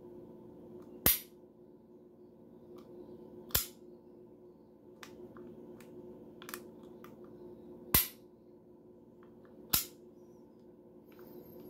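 Heckler & Koch P7 PSP pistol being worked by hand: the squeeze-cocking lever on the front of the grip is pressed and the trigger dry-fired. This gives four loud, sharp metallic clicks a few seconds apart, with fainter clicks in between.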